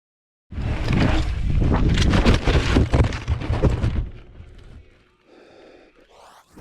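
Wind buffeting a moving camera's microphone: loud rough rumbling that starts abruptly about half a second in and eases off after about four seconds into a quieter stretch.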